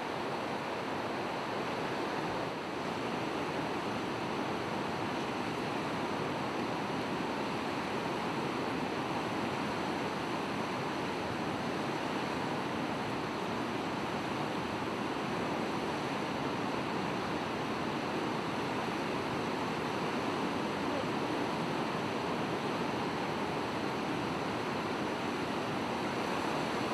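Steady rushing of swollen river water and surf at a river bar, an even wash of water noise that holds without a break.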